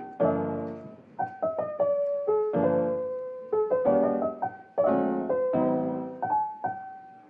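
Background piano music: a melody over chords, each struck note starting sharply and fading away.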